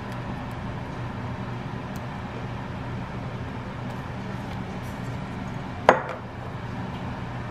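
Steady low background hum, broken about six seconds in by a single sharp clink of glass, such as a glass pasta-sauce jar knocking against a glass baking dish.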